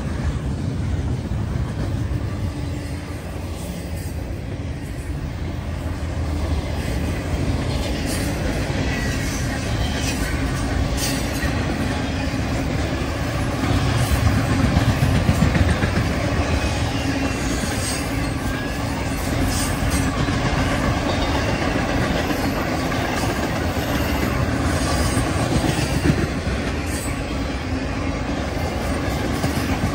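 Intermodal freight train's cars rolling past: a steady rumble of steel wheels on rail, with scattered clicks and knocks as the wheels cross the rail joints.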